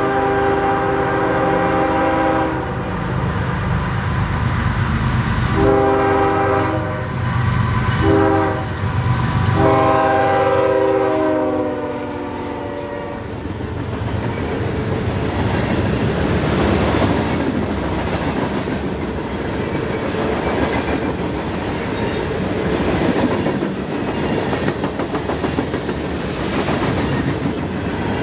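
Diesel freight locomotive's Nathan K5HL five-chime horn blowing the long, long, short, long grade-crossing signal as the train approaches. The last long blast ends about 13 seconds in, and then the freight cars roll past with the clickety-clack of wheels over the rail joints.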